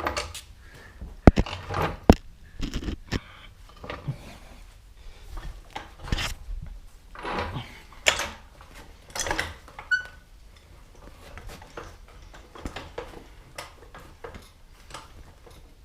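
Floor jack being handled and positioned under a car: two sharp metallic clicks a second or two in, then irregular scraping and rustling.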